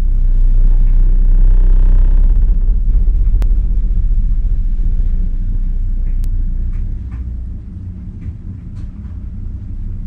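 Deep steady rumble of heavy construction machinery vibrating the house, heard from inside through the walls, with two sharp clicks about three and six seconds in. It is loudest over the first few seconds and eases off a little after about seven seconds.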